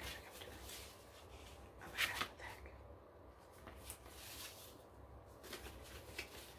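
Fingers tapping and rustling on a handheld object: soft irregular taps and scratchy handling noises, with a louder cluster of taps about two seconds in.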